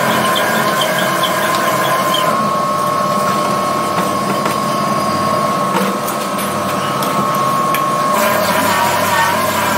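A metal-cutting machine tool working a metal part, giving a steady high-pitched squeal. The squeal shifts slightly in pitch about two seconds in and shifts back about eight seconds in.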